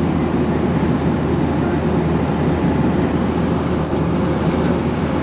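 Steady engine and rushing-air noise of an airliner, heard from inside the passenger cabin, deep and unbroken.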